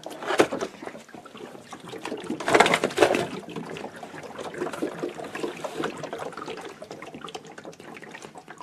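Water gurgling and splashing as the Vornado Evap40 humidifier's filled water tanks are tipped into its base and drain into the reservoir. It is loudest about two and a half to three seconds in, then settles to a fainter gurgling trickle.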